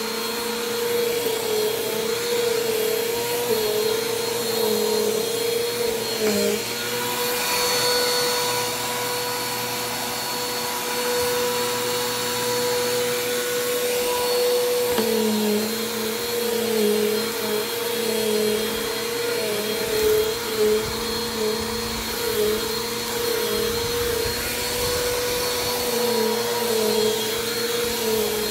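Bissell PowerForce Compact Turbo upright vacuum (6.2-amp motor) running while being pushed back and forth over carpet on a test run after repair. The motor whine wavers in pitch with the strokes, holds steady for several seconds in the middle, then wavers again.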